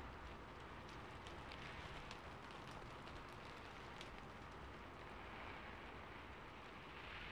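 Rain on a rooftop as a recorded ambience track: a soft, even hiss of rainfall with scattered ticks of single drops.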